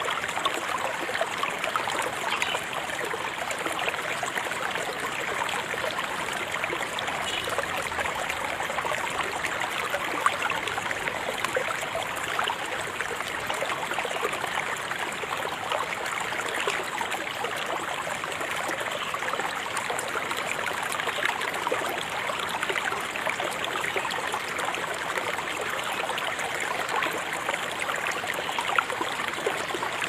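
River water flowing steadily, a continuous babbling rush thick with small splashes.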